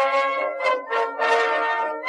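Music: a melody of held, pitched notes that change every half second or so.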